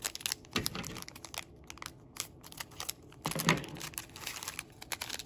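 Yu-Gi-Oh! trading cards being handled and laid down, with the foil wrapper of a booster pack crinkling: a string of small clicks and snaps, and two louder rustles about half a second in and about three and a half seconds in.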